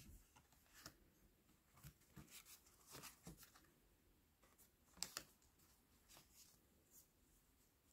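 Faint, scattered soft taps and slides of large oracle cards being handled and shown one by one, the loudest about five seconds in; otherwise near silence.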